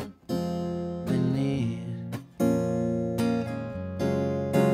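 Gibson acoustic guitar strummed in chords, with the strings damped twice for a brief moment before the strumming resumes.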